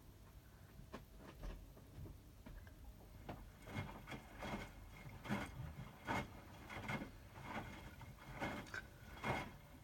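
Hotpoint WMFUG 942 front-loading washing machine's drum tumbling wet laundry in the wash, a swish and slosh about every 0.8 seconds that starts a few seconds in.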